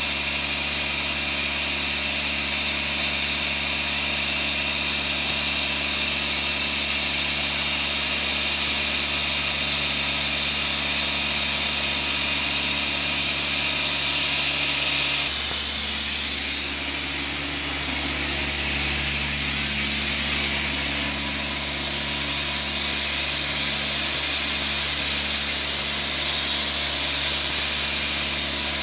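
Loud, steady hiss of compressed air blasting from a hose nozzle to blow dust off the road surface before blacktopping, over the steady hum of the towed XA 187 portable diesel air compressor. The hiss shifts in tone about halfway through.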